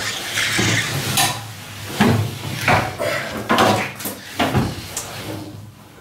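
A series of irregular knocks and clatters, roughly one a second, from handling around a front-loading washing machine, over a steady low hum.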